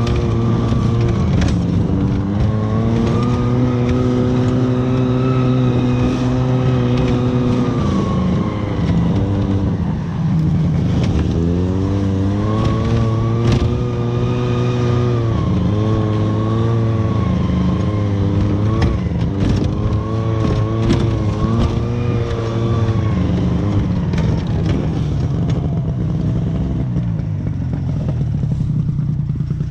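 Snowmobile engine running while riding through snow, its pitch rising and falling with the throttle, with a few sharp knocks from the ride. Near the end the engine settles into a lower, steadier run.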